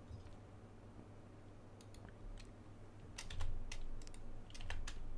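Computer keyboard keys and mouse buttons clicking: a few single clicks, then quick clusters of keystrokes about three seconds in and again near the end, over a steady low hum.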